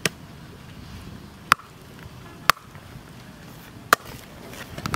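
A heavy machete blade chopping into a fibrous palmyra palm seed on a wooden block: four sharp chops about a second apart.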